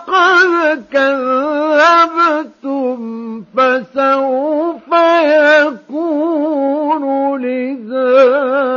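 A male Quran reciter chanting in the ornamented mujawwad style, with long melismatic phrases whose pitch wavers and bends, broken by short pauses for breath. The recording is dry, without added echo.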